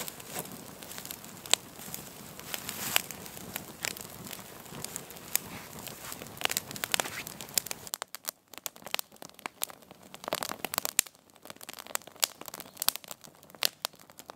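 Newly lit campfire of split kindling in a log-cabin lay crackling as it catches, with many sharp snaps and pops. About eight seconds in, the background hiss drops away, leaving scattered crackles.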